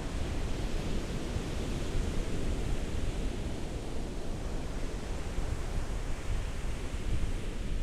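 Ocean waves washing on a shore: a steady rush with low rumble and gentle swells in the hiss, with some wind buffeting on the microphone.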